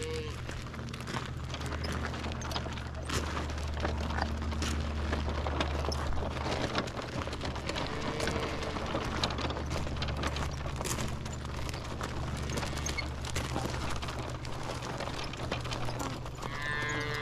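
Footsteps, a sheep's hooves and small wagon wheels crunching over gravel: many small irregular crunches over a steady low hum.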